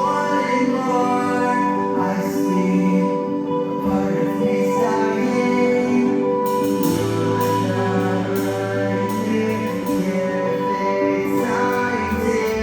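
Music playing: a slow song with a singing voice over sustained notes, with a low bass note coming in about seven seconds in.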